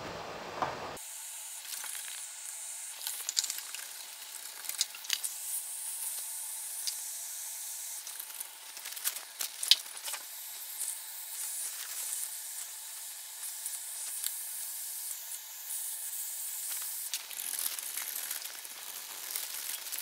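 Wallpaper steamer hissing steadily as it steams old wallpaper off a wall, with scattered scrapes and clicks of a scraper and peeling paper over it.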